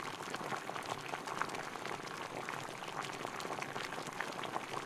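Potatoes frying in oil in a pot: a steady sizzling hiss with many small crackles and pops.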